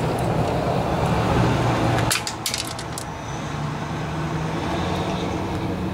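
A quick cluster of sharp metal clicks and rattles about two seconds in, from parts being handled while the oil dipstick tube is fitted back onto a Briggs & Stratton mower engine, over a steady low background rumble.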